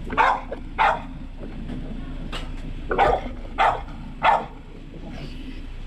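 A dog barking: about six short, loud barks at irregular intervals, stopping after about four and a half seconds.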